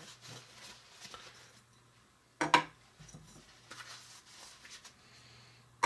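Pieces of a toy coffee maker set being handled, with a sharp clack about two and a half seconds in and another near the end as small cups or parts are set down.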